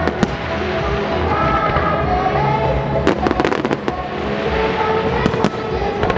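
Fireworks bursting in quick clusters, a dense run about three seconds in and more near the end, over loud show music played along with the display.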